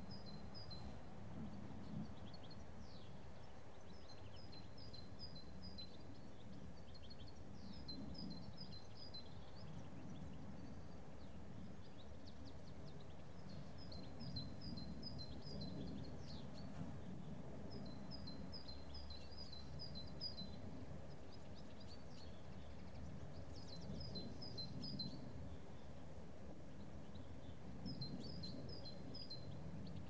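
Countryside ambience: a small bird repeats a short phrase of quick, high chirps every few seconds over a steady low background rumble.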